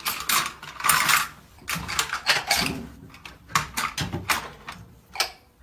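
Irregular clattering and rattling of dishes and utensils in a dish rack as a cat clambers over them, a string of sharp knocks and scrapes that stops near the end.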